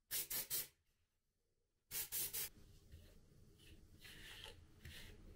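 A hair-product spray hissing at the hair roots in short puffs, three quick puffs about a tenth of a second in and three more about two seconds in. After that comes a faint rustle of hair being worked through with a brush.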